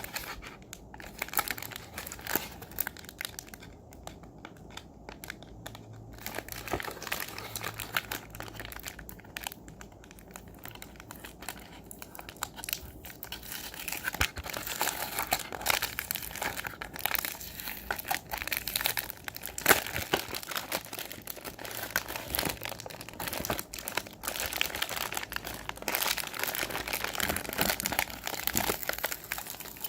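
Toy packaging being handled and unwrapped, crinkling and rustling with small tearing and crackling sounds in an irregular run. It thins out twice in the first half and gets busier near the end.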